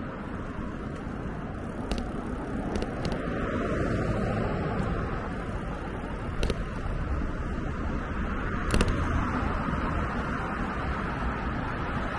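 Steady city-street noise heard from a moving mini bicycle: car traffic on the road alongside and the bike's own rolling rumble, with a few sharp clicks.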